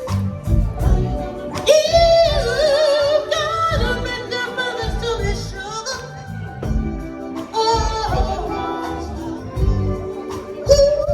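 Music with a sung vocal over a steady beat.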